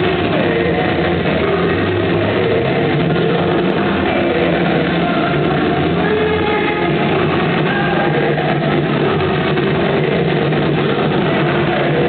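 Loud, steady music played over speakers to lead an aqua aerobics class, mixed with the splashing of many people exercising in the water.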